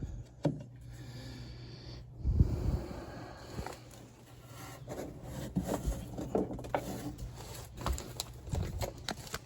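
Hands working on furnace parts: scattered clicks, knocks and rustling, with a heavier thump about two seconds in, over a steady low hum.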